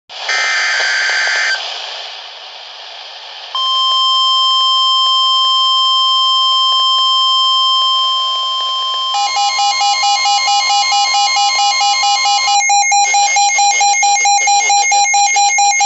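Emergency Alert System alert tones before a severe thunderstorm warning: a short screech of data tones at the start, then a steady alarm tone held for about five seconds, then a fast beeping of about three beeps a second.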